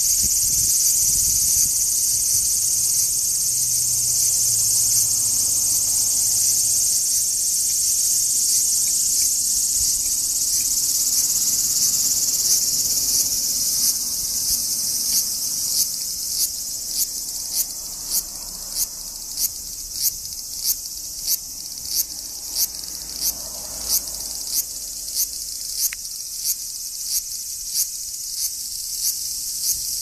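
Large brown cicadas (abura-zemi) singing up close, a continuous high-pitched sizzling buzz. From about halfway through, a rhythmic pulsing of roughly one and a half beats a second joins the steady drone.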